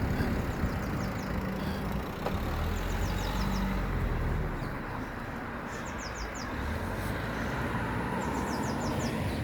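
Steady road traffic running past. A bird repeats a short series of quick high chirps about every two and a half seconds.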